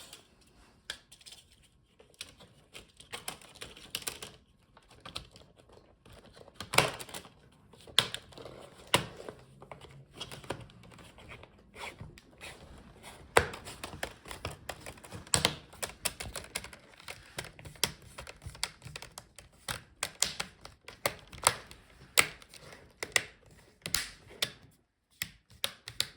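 Plastic front bezel of an HP Laptop 15-fd screen being pressed on by hand, its clips snapping into place in a long, irregular run of sharp clicks.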